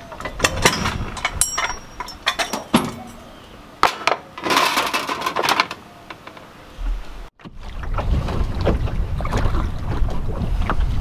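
Sharp clicks and knocks from handling the steel canoe loader post in the truck's hitch receiver. After a sudden cut, wind buffets the microphone in a steady low rumble while the canoe is out on open water.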